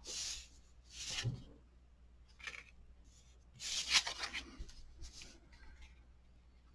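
Paper and cardstock being handled and rubbed on the work surface, in about five short rustling bursts, the loudest about four seconds in.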